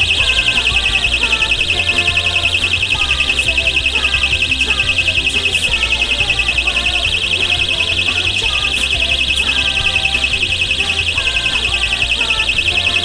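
Electronic car-alarm buzzer sounding nonstop as a rapid, even, high-pitched pulse, the sign that the alarm system is in its triggered ALARM state. Background music with bass plays underneath.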